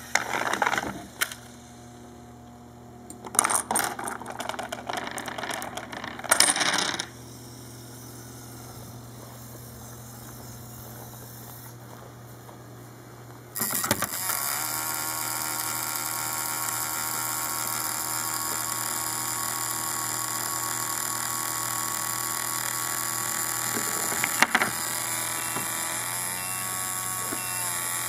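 Metal balls clattering and rolling along a homemade ramp in a Rube Goldberg machine, in short rattling bursts over the first seven seconds. From about fourteen seconds in, a steady mechanical hum with a high whine takes over, with one sharp knock near the end.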